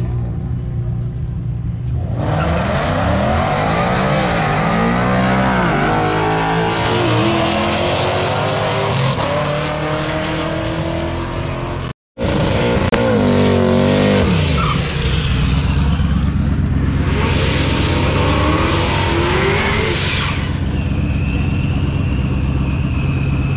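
Drag cars launching and accelerating down the strip, engine pitch climbing again and again through the gear changes. A car then revs and spins its rear tyres in a burnout, tyre squeal and rising engine together for about three seconds.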